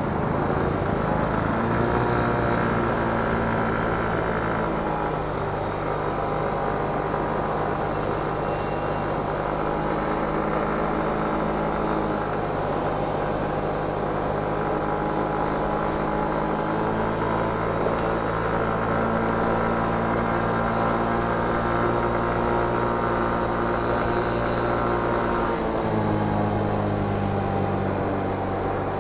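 Motor scooter engine pulling away from a stop, rising in pitch over the first couple of seconds, then running at a steady cruise. The engine eases off briefly about 26 seconds in.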